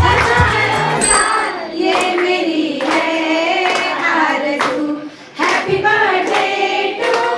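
Women singing a song in unison into a microphone, with hand-clapping keeping time.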